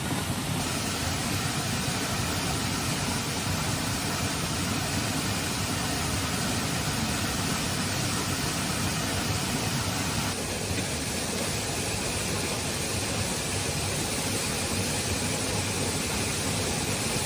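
Heavy rain falling steadily, an even hiss with a slight shift about ten seconds in.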